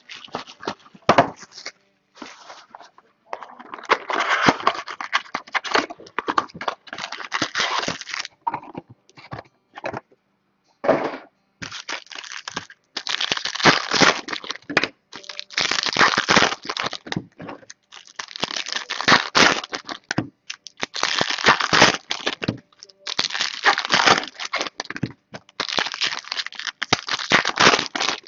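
Foil trading-card pack wrappers being torn open and crinkled by hand, in repeated crackling bursts of a second or two with short pauses between.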